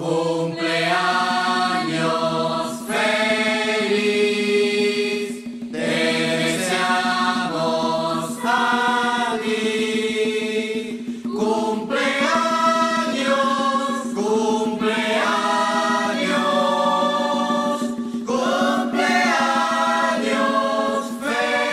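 Background music: chant-like singing by several voices in phrases, over a steady low held note.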